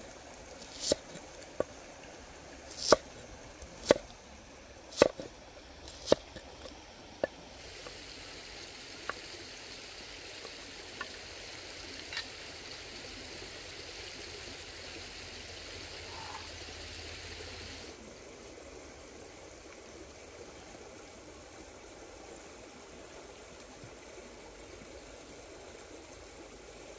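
A cleaver chopping on a wooden chopping block, sharp chops about one a second for the first seven seconds. After that a stream runs with a steady rushing hiss, which turns duller about two-thirds of the way through.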